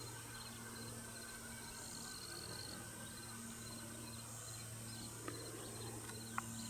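Faint outdoor ambience of insects chirping in short repeated trains, over a steady low hum, with a couple of tiny clicks.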